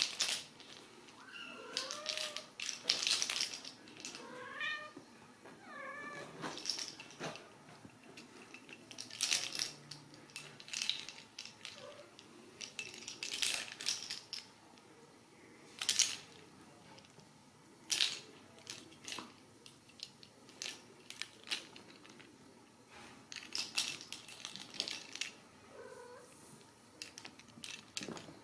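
Ragdoll kittens mewing: several short, high calls that rise and fall in pitch in the first six seconds, and a faint one near the end. Between the calls come frequent sharp scuffs, taps and rustles from the kittens' play.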